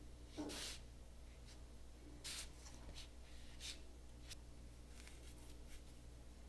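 Faint swishing strokes of a paintbrush dragging acrylic paint across paper, a few separate strokes, the first about half a second in the loudest.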